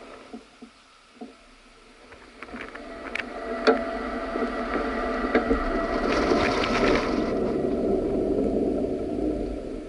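Air rushing past the microphone as the Terror-Dactyl swing ride sweeps through the canyon. It builds from near quiet about two seconds in, is strongest in the middle of the swing, and eases toward the end, with scattered clicks and rattles throughout.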